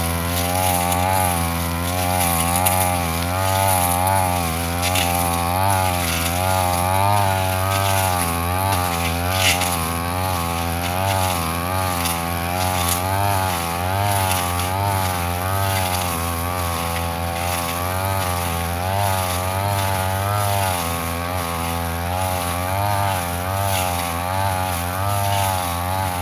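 Petrol brush cutter running at high speed, its engine pitch wavering up and down about once a second as the blade meets and clears the grass.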